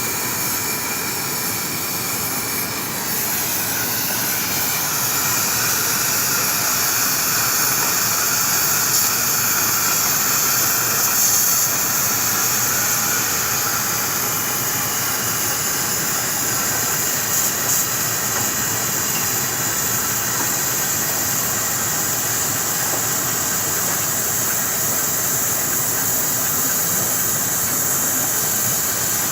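Steady hiss of the cutting torch on a magnetic pipe-cutting machine as it cuts through a high-pressure pipe, with a faint whine over it in the first half.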